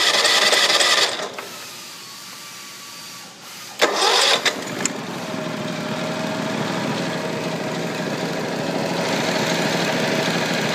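Kawasaki FH500V V-twin propane engine being cranked: a first try stops about a second in, then a second crank near four seconds catches and the engine settles into steady running that slowly gets louder toward the end.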